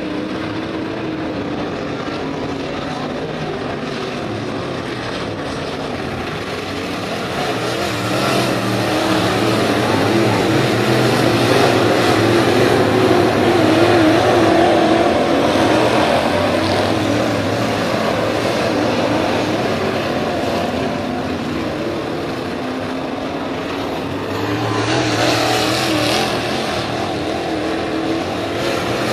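IMCA Modified dirt-track race cars' V8 engines running around the oval, their pitch wavering as they work the throttle. The sound grows louder about eight seconds in and again near the end as the cars come by.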